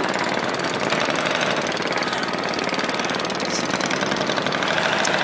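An engine running steadily nearby with a fast, even knocking beat.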